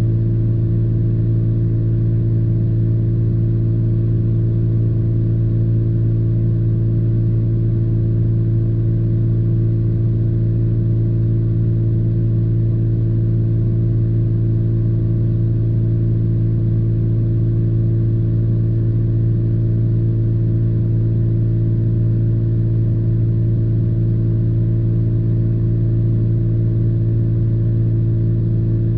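Pickup truck's engine idling, heard from inside the closed cab as a loud, steady low hum that never changes.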